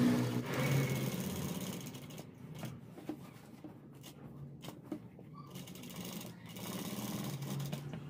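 Industrial lockstitch sewing machine stitching fabric. It runs fast at first, slows almost to a stop with a few light clicks in the middle, then speeds up again near the end.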